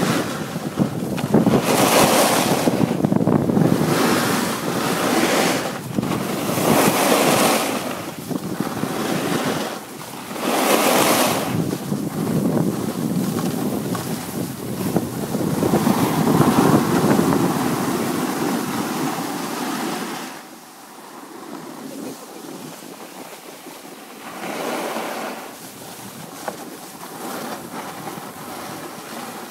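Wind buffeting the microphone of a downhill skier, with surges of skis scraping and hissing over hard-packed snow through the turns. It quiets after about twenty seconds.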